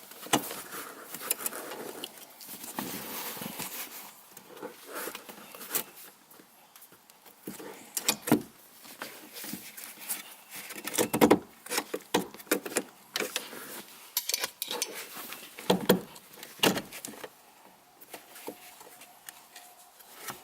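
Metal pry bar working against the metal shifter plate, metal on metal, with irregular sharp clicks and knocks as the plate, stuck down with a bead of sealant, is levered loose.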